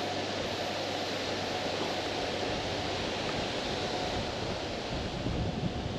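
Steady outdoor hiss of wind on the microphone, with low rumbling buffets growing near the end.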